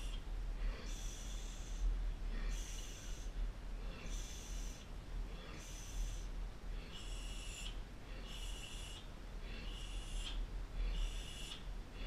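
A man breathing heavily and rhythmically, with a short forceful breath about every second and a half over a low steady hum.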